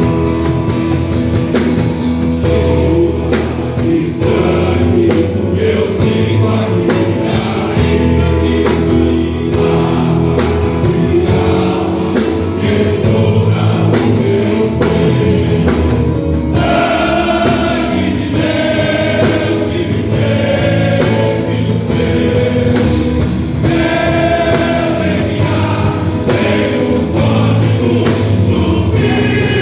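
Gospel-style music with a group of voices singing over instruments; the voices come in more clearly about halfway through.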